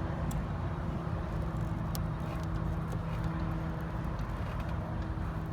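Steady low mechanical hum, like an idling vehicle engine or machine running, with a few faint light clicks.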